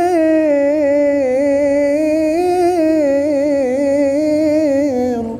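A young man's solo Qur'an recitation (tilawah), holding one long melismatic note with wavering ornaments at the drawn-out end of a verse. The note slides downward and stops near the end.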